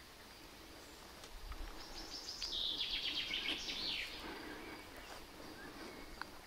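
A songbird sings one fast, trilled phrase lasting about two seconds and ending in a falling flourish, over a faint steady high-pitched background.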